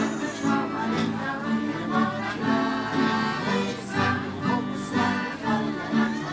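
Three voices singing together over two strummed acoustic guitars and a piano accordion, at a steady beat.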